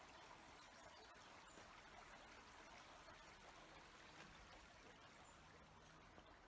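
Faint, steady rush of a small river flowing beneath a footbridge.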